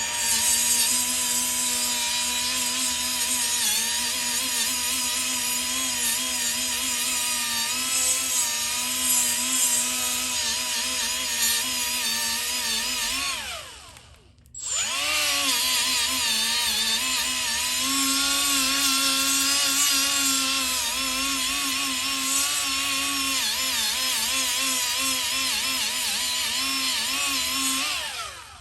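Milwaukee M12 die grinder running against rusted metal to strip the rust, its high whine wavering in pitch under load. It winds down about halfway, stops briefly and spins up again for a second long run.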